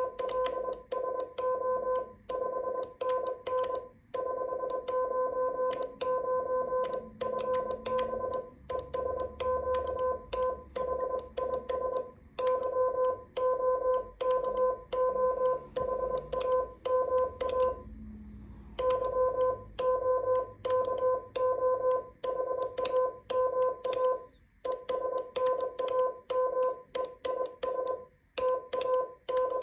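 Morse code sent by hand on a small paddle key: a steady beep keyed on and off in dots and dashes, with sharp clicks at each element. It spells out a ham-radio exchange, 'QTH IS YOKOHAMA' and 'NAME IS TAKA', with a short break between words near the middle and again later.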